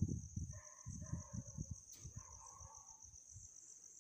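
Marker pen writing across a notebook page: soft, irregular low rubs and knocks that stop about three and a half seconds in. A steady, high-pitched cricket trill runs underneath throughout.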